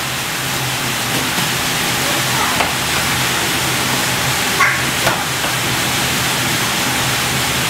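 Steady, fairly loud hiss with a low hum underneath. There is a short, faint, high-pitched chirp about halfway through and a couple of fainter ticks around it.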